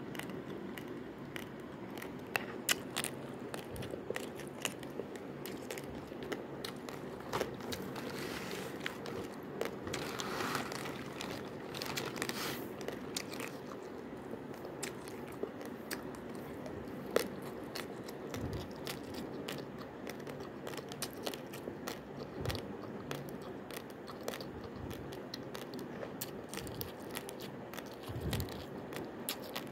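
Raw basmati rice grains crunched and chewed: a run of irregular sharp crunches and clicks over a steady low background hum.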